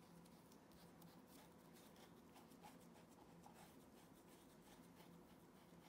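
Faint scratching strokes of a small hand tool rubbing inside a leather shoe, a dozen or so quick strokes, over a faint steady hum.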